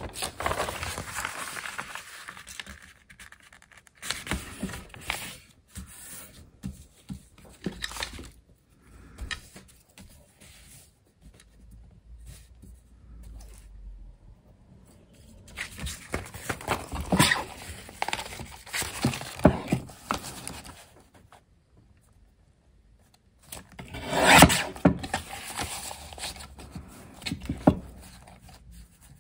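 Sheets of paper being handled and worked: rustling, rubbing and scraping in irregular bursts with pauses, the loudest burst a few seconds before the end.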